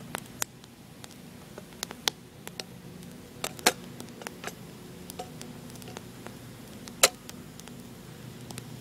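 Wood campfire crackling, with irregular sharp pops; the two loudest come about halfway through and near the end.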